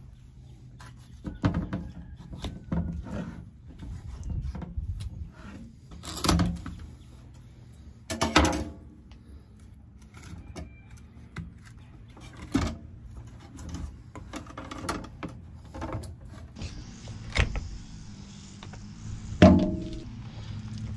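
Knife cutting and scraping through a snapping turtle's carcass and shell on a plastic cutting board, with scattered knocks, taps and handling noises as the carcass is worked and pulled apart. The loudest knock comes near the end.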